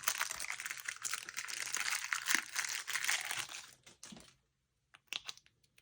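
Plastic packaging crinkling as it is handled, stopping about four seconds in, followed by a few light clicks.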